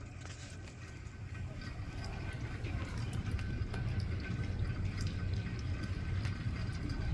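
Winter-storm precipitation falling and ticking on surfaces in many small, irregular hits, over a low rumble that grows louder from about two seconds in.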